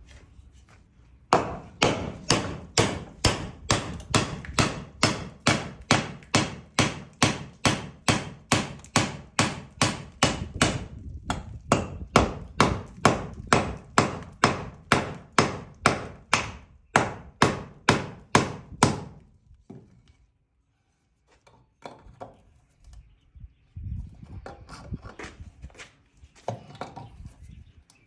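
A hammer striking wood in a fast, steady run of blows, about two to three a second, for some eighteen seconds, then stopping; a few lighter, scattered knocks follow near the end.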